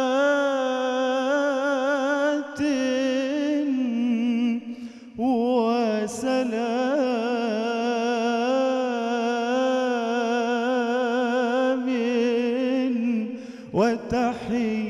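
Egyptian munshid singing an Islamic ibtihal (religious supplication) solo: a male voice drawing out long melismatic notes with wavering ornaments, taking a few short breaths between phrases.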